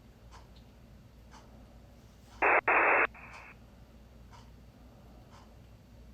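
Faint ticking about once a second, broken about two and a half seconds in by a loud burst of static hiss, under a second long, that starts and stops abruptly.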